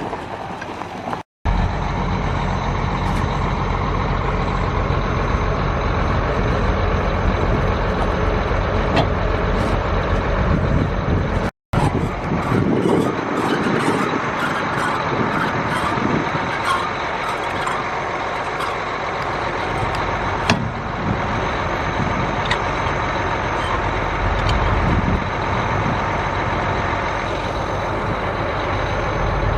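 Heavy farm vehicle's engine running steadily, with a deep low rumble. It drops out briefly twice where the footage is cut.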